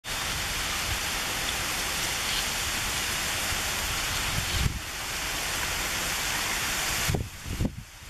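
Steady outdoor background hiss with irregular low rumbling. It dips briefly about halfway through and fades unevenly near the end.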